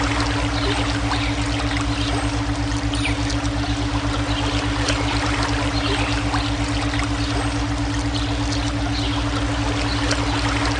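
Running water flowing steadily, layered over a steady low electronic drone from a brainwave tone track.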